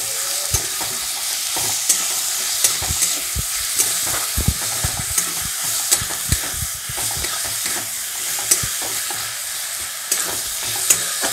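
Chopped onions, tomatoes and green chillies sizzling steadily in mustard oil in a metal kadai. A metal spatula scrapes and taps against the pan again and again as they are stirred.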